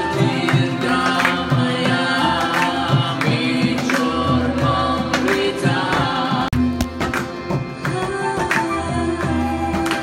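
Live devotional music: quick percussion strokes over steady drone tones, with singing.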